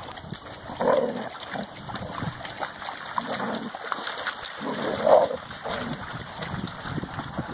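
Dogs wading and splashing in shallow pond water, with a dog giving short barks about a second in and again around five seconds in.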